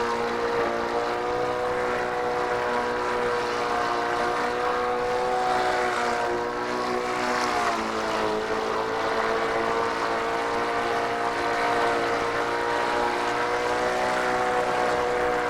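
Walk-behind gas lawn mower engine running steadily close by, its pitch sagging briefly about halfway through before holding steady again.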